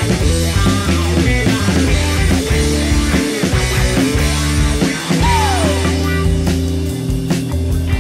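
Rock music with drums and a steady bass line; a sliding note falls in pitch about five seconds in.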